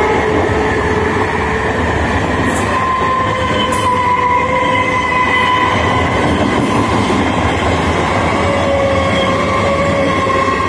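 Electric multiple unit local train passing close by: a loud, steady rumble of wheels on rail with several high, slowly drifting tones above it.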